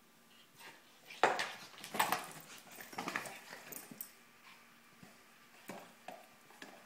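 Pug puppy making a few short, loud bursts of sound between about one and four seconds in, then a couple of fainter ones.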